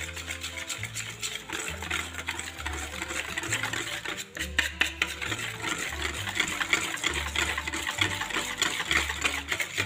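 Batter being whisked in a bowl: a dense, rapid clicking and scraping. Background music with a bass line runs underneath.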